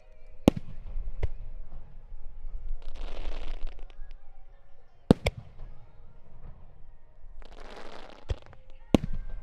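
Aerial fireworks shells bursting: about six sharp bangs spread unevenly through the display, the loudest near the start and in the middle. Twice a hissing crackle runs for about a second between them.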